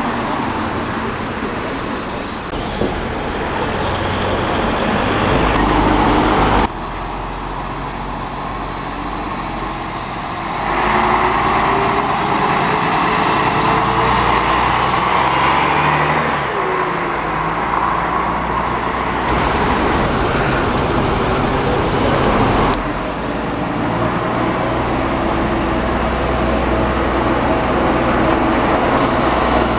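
Diesel engine of an old Leyland double-decker bus running, its note rising in pitch as it pulls away, with road traffic around it. The sound changes abruptly three times, cutting between separate recordings.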